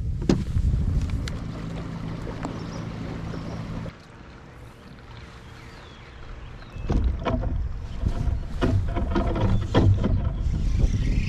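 Sounds aboard a bass boat on the water: a steady motor hum over low wind rumble that stops about four seconds in, then from about seven seconds in wind rumbling on the microphone with a series of sharp clicks and knocks.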